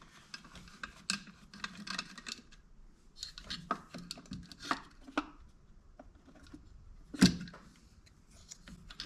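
Scattered light clicks and metallic clinks of hand tools working on chainsaw parts during disassembly, with one louder knock about seven seconds in.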